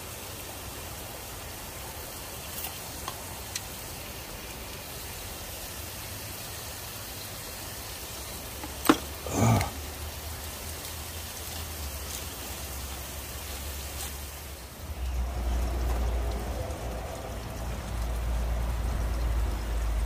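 Shallow mountain stream running over rocks, a steady rushing hiss. A short click and a brief low voice sound come about nine seconds in, and a low rumble joins from about fifteen seconds on.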